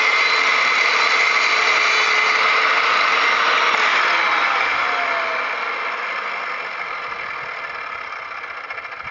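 Skil 3160 miter saw with a 7-inch diamond blade running at full speed through a cut in stone veneer. About four and a half seconds in the motor is switched off, and its whine falls in pitch and fades as the blade spins down.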